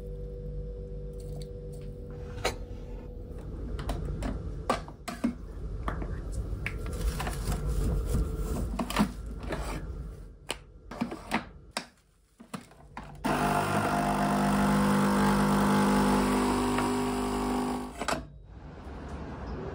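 Nescafé Dolce Gusto capsule coffee machine: a series of clicks and knocks as the cup and capsule are set in place, then about 13 seconds in its pump starts with a loud, steady buzz as it brews into the cup, stopping about five seconds later.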